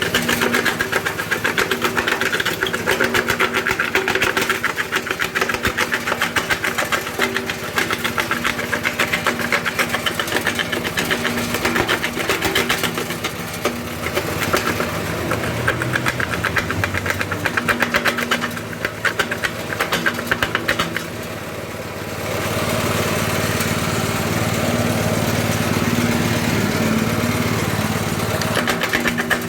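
Homemade stone crusher built from scrap iron, with a flywheel, running with a fast, steady clatter. The clatter gives way to a smoother, steadier run about 22 seconds in.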